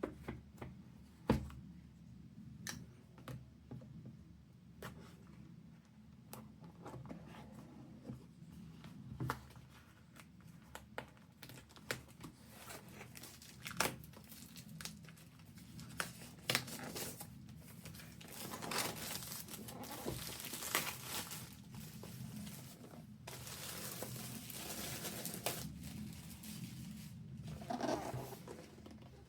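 Packaging being opened and handled: scattered sharp clicks and knocks, then a long stretch of rustling and tearing of wrapping in the second half.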